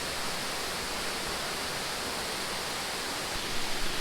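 Steady rush of a waterfall, falling water making an even, unbroken noise. A few low thuds come in near the end.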